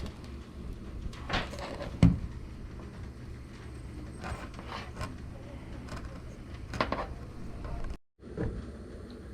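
Scattered knocks, clicks and rattles as a washing machine suspension rod and the machine's parts are handled during fitting, with one sharp knock about two seconds in. The sound cuts out completely for a moment about eight seconds in.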